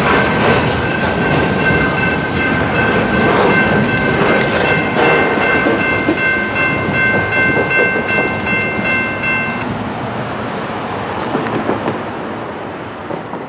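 A freight train of loaded flatcars rolling past close by, its wheels running steadily on the rails. A high ringing tone sounds over it and cuts off about ten seconds in. The noise then eases as the end of the train passes and moves away.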